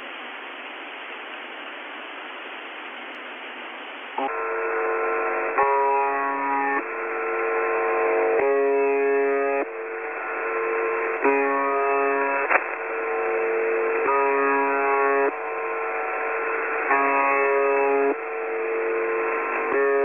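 Radio static hiss, then a short tune of held notes that loops about every four and a half seconds, thin and narrow-band like a shortwave broadcast. It is a numbers-station interval signal following a Russian-language number readout.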